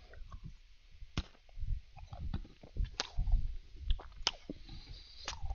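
Danish butter cookie being chewed right at a headset microphone: uneven low chewing thuds with sharp clicks now and then.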